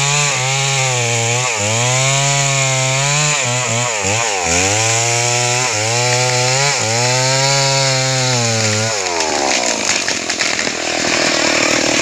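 Two-stroke chainsaw running hard in a cut, its engine pitch dipping and recovering every second or two as the wood loads it. About nine seconds in the engine note winds down, and a rough crackling noise takes over.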